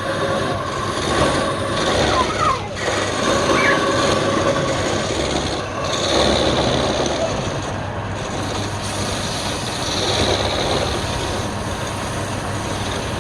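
Wood lathe running, with a turning tool working the spinning wood in a steady rasping noise.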